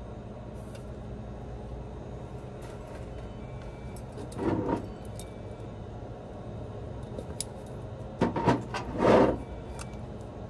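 Steady low hum of a shop's background machinery. A glass jar candle is being handled, with a short burst of handling noise about four and a half seconds in and a louder one around eight to nine seconds in.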